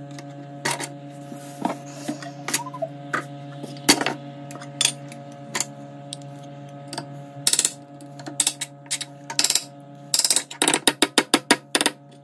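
A spoon clicking and scraping in a pan as vermicelli is stirred, over a steady hum. Near the end the clicks come quickly, several a second.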